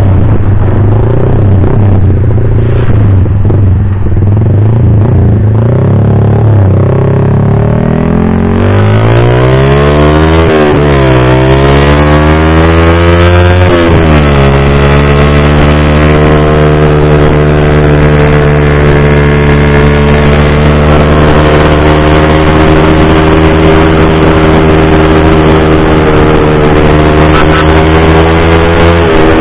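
Yamaha Vixion R's single-cylinder engine through a Pro Liner TR1 full-system aftermarket exhaust, heard on board while riding. The exhaust note climbs in pitch as the bike accelerates and falls sharply at two upshifts, about ten and fourteen seconds in, then holds steady while cruising.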